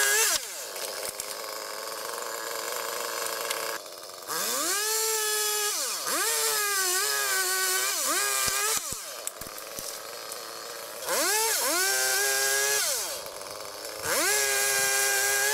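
Chainsaw revving up and down again and again, held at high revs for a second or two at a time and dropping back to a lower running speed in between: a climber cutting limbs from the tree.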